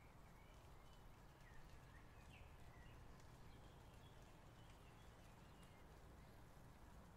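Near silence: a low steady room hum with a few faint, short high chirps scattered through it.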